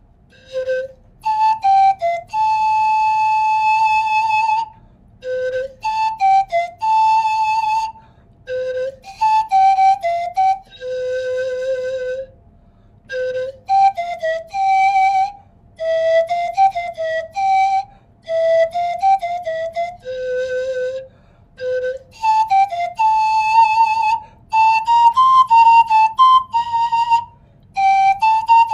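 Curved wooden pan flute played solo: a melody of single notes in short phrases, some notes held for two seconds or more, with brief pauses between phrases.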